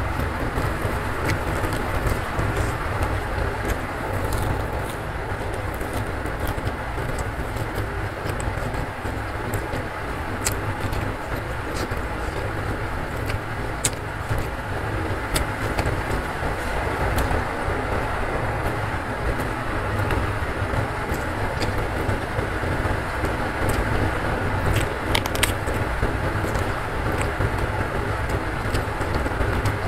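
Heavy rain, a steady rumbling rush, with scattered sharp clicks on top.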